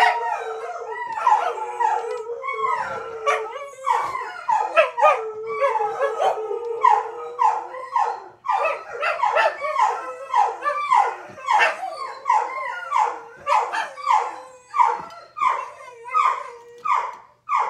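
A dog howling and whining in a long series of short, wavering cries, which come about twice a second in the second half over a held howl early on.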